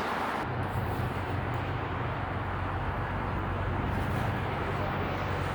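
Steady city street background: a low hum of traffic with no distinct events.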